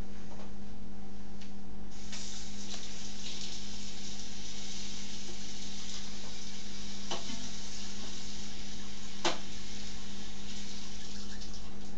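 Kitchen faucet running: a steady hiss of water that starts about two seconds in, with two sharp clinks a few seconds later, as clean water is run into a siphon hose.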